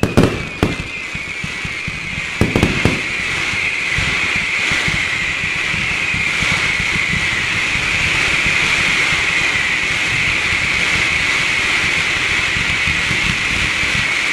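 Fireworks finale: a few sharp shell bangs in the first three seconds, then a ground battery firing a dense volley of whistling effects, many whistles at once slowly falling in pitch, over continuous crackling.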